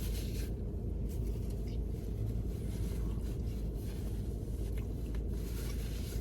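Steady low rumble inside a car cabin, with a few faint scrapes and rustles.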